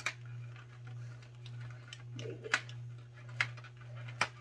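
Fingernails clicking and scratching on a cardboard advent calendar as a door is picked open: about four sharp clicks and faint scratching over a steady low hum.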